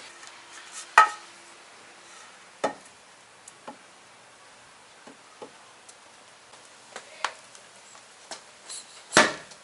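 Scattered clicks and knocks of tire levers working against a motorcycle wheel rim to break the tire bead, with sharper knocks about a second in and near the end.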